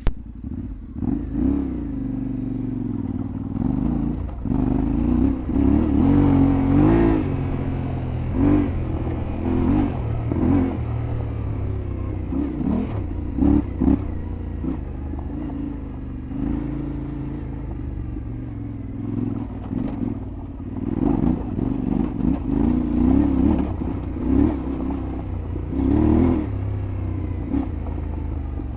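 Yamaha Ténéré 700 World Raid's parallel-twin engine revving up and down through the throttle as the bike is ridden off-road, with scattered knocks and clatter.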